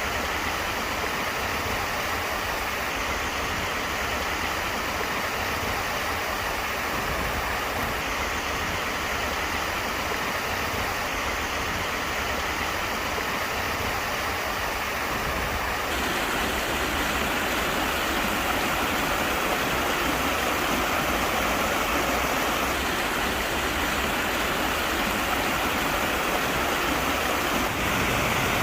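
Stream water rushing and splashing through the gaps between stepping stones, a steady rush that gets a little louder about halfway through.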